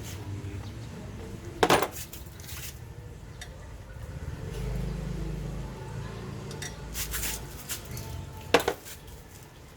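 Metal parts clinking and knocking as they are handled during work on the e-bike, with one sharp knock about two seconds in and another near the end.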